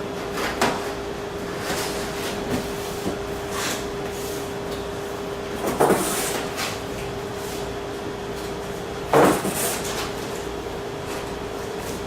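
Cardboard panels being handled, folded and their tabs pushed into slots: irregular scrapes and knocks, two louder thumps about six and nine seconds in. A steady hum runs underneath.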